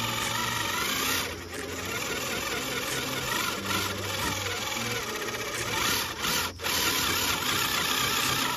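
Electric motor and gears of an Axial SCX10 III RC rock crawler whining as it crawls, the pitch wavering up and down with the throttle, with brief dips about a second in and again past the middle.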